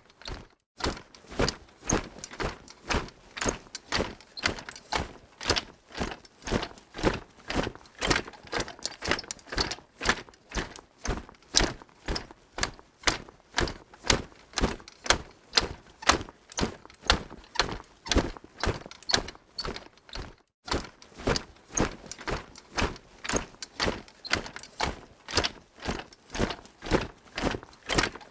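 Troop of soldiers in metal armour marching: a steady, even rhythm of heavy footfalls, about two to three a second, with a brief break about twenty seconds in.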